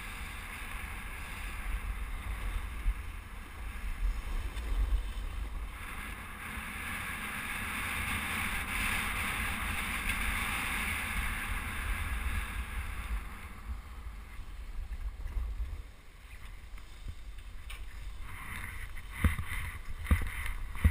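Wind buffeting a body-mounted camera's microphone, with the hiss of sliding fast over packed snow. It grows strongest midway, then dies down about three-quarters of the way through. A few sharp knocks follow near the end.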